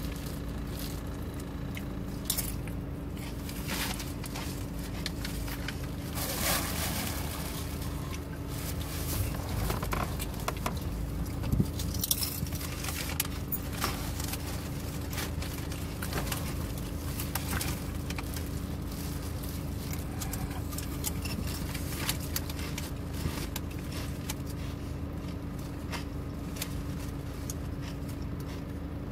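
Steady hum inside a car's cabin with one constant low tone. Over it come intermittent rustling, chewing and small clicks and knocks, busiest about six to seven seconds in and again around twelve seconds.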